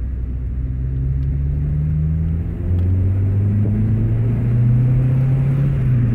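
1997 Mitsubishi Mirage's four-cylinder engine and exhaust heard from inside the cabin while driving under power. About two and a half seconds in, the sound dips briefly and drops in pitch, as with a manual gear change, then climbs slowly again.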